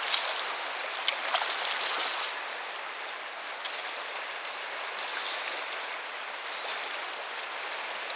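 Fast river current flowing steadily around the wader. In the first two seconds there are several sharp splashes as a brown trout struggles in the landing net.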